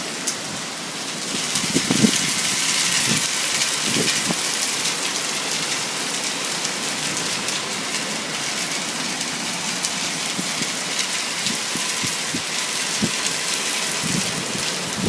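Heavy rain pouring down in a thunderstorm, a steady hiss with a few soft taps of drops landing close by.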